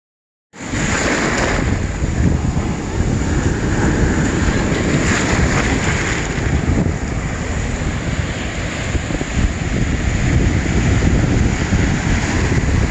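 Waves washing on a pebble beach under heavy wind buffeting the phone's microphone, cutting in abruptly about half a second in. The surf swells a little about a second in and again around five to six seconds.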